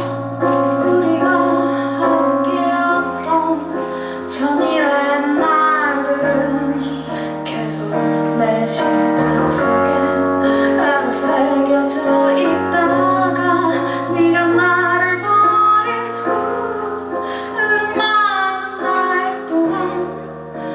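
A woman singing a slow Korean song live over instrumental accompaniment.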